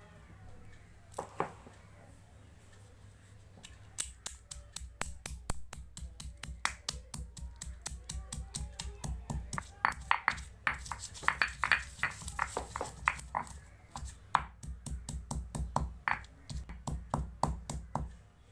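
Whole spices being pounded with a pestle in a mortar: about three sharp strikes a second, each a dull thud with a crack. The pounding starts a few seconds in and is loudest in the middle.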